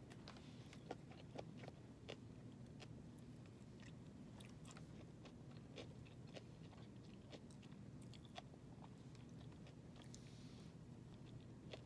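Faint chewing and crunching while eating a poke bowl with chopsticks: scattered small clicks and crunches over a steady low hum.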